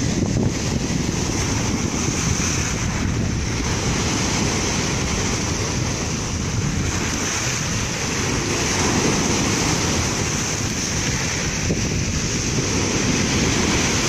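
Sea surf breaking and washing in foam over a pebble beach and around boulders, a continuous rushing wash.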